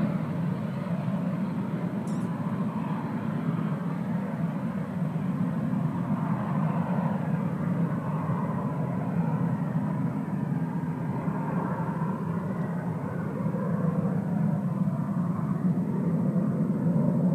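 Steady, distant jet engine noise from a T-45 Goshawk jet trainer climbing away just after takeoff, with a slight waver and no clear changes.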